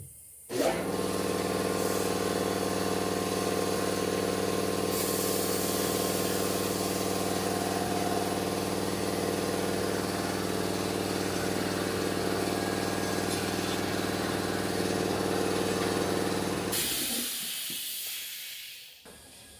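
An electric motor in tyre-changing workshop machinery starts about half a second in and runs with a steady hum. About five seconds in a loud hiss of air joins it. Both stop near the end and the motor winds down over a couple of seconds.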